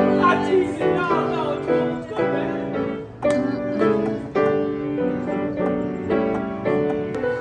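Piano playing a run of chords, struck about twice a second.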